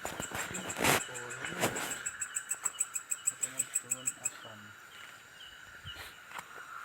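Night insects chirring steadily, with a fast run of short high chirps, about five a second, that stops about four seconds in. A couple of sharp knocks come in the first two seconds.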